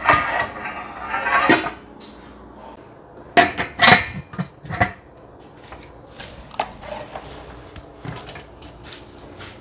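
Stainless-steel cookware clattering: the inner pot and lid of a Tatung electric cooker scraping and knocking as they are handled. A cluster of sharp metal clanks with a short ring comes about three to five seconds in.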